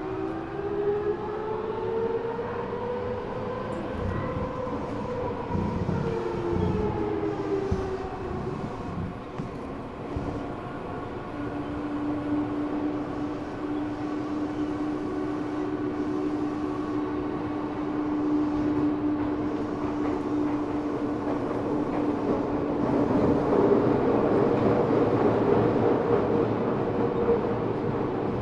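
Subway car running with its high-pitched Mitsubishi three-level VVVF inverter, taken from the 7000 series, whining in several tones that rise in pitch as the train pulls away. The whine fades after a few seconds and gives way to a single steady tone while running. Wheel and rail noise grows louder near the end.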